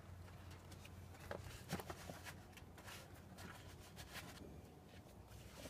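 Faint steady low hum with a few scattered light clicks and rustles.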